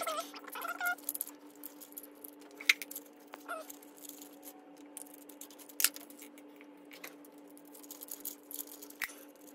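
Scattered sharp metal clicks and light rattling from hands handling the timing chain and sprockets of a torn-down Polaris Sportsman ATV engine, over a steady low hum.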